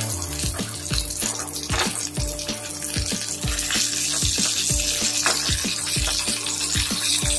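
Whole masala-coated fish frying in hot oil, a steady sizzle, with background music with a steady beat underneath.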